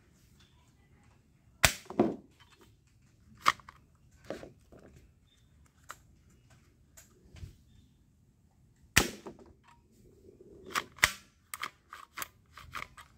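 Plastic toy dart revolver snapping sharply several times as its hammer and trigger are worked, with lighter plastic clicks of handling between; the two loudest snaps come about a second and a half in and about nine seconds in, and a quick run of smaller clicks follows near the end.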